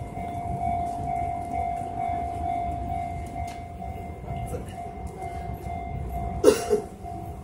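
Shin-Keisei 8800-series electric train standing at a station, with a steady electrical hum over a low rumble. A sudden loud short burst of noise comes about six and a half seconds in.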